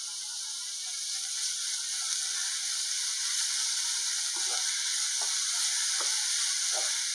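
Chopped onions and ginger-garlic paste sizzling in hot oil in a nonstick pan, a steady frying hiss. From about four seconds in, a spatula stirs them with short scraping strokes.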